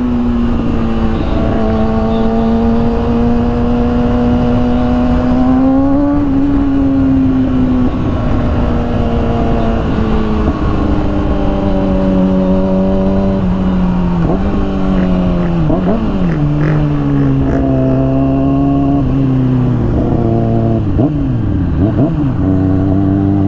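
Kawasaki ZX-6R inline-four sport-bike engine running at road speed, with wind rushing over the helmet microphone. Its note holds steady at first, then drops in steps partway through as the bike slows, with short wavering blips of throttle near the end.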